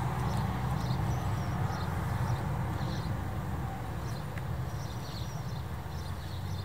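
A Bernese mountain dog gnawing and crunching on a pig's ear, with short irregular chewing clicks, over a steady low rumble.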